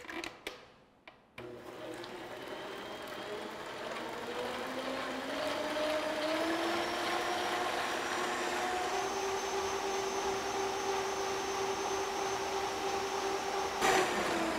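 Arno Inspirant stand mixer with its beaters lowered into the bowl, a few clicks near the start, then the motor starting and whipping whole eggs and sugar. Its whine rises in pitch over the first few seconds as it speeds up, then runs steadily. Near the end there is a click as the speed knob is turned and the motor begins to wind down.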